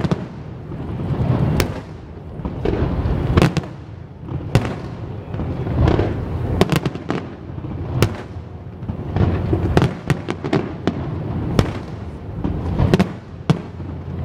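Aerial fireworks bursting: sharp bangs about once a second with smaller pops between them, over a continuous low rumble of booms.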